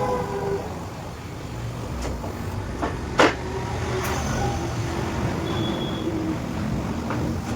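Steady low mechanical rumble, with one sharp knock about three seconds in.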